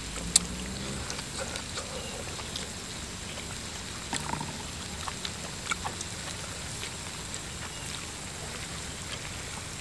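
Broth simmering in a charcoal-heated moo kratha pan, a steady bubbling hiss, with a few scattered clicks of chopsticks against the pan and bowls.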